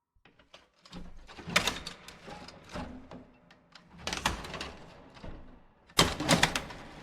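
Creepy door-opening sound effect: a door creaking and rattling in a string of sharp clicks and clattering strokes, with the loudest clatter near the end.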